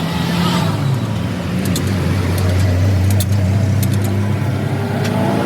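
An engine or motor runs with a steady low hum, with scattered light metallic clicks over it.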